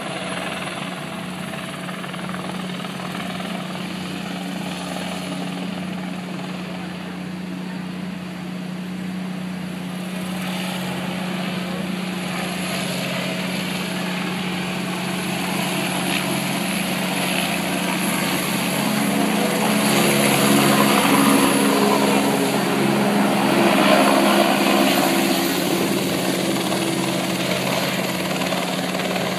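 Helicopter flying low overhead, its rotor and engine running steadily, growing louder through the second half as it comes closer and loudest about three-quarters of the way in.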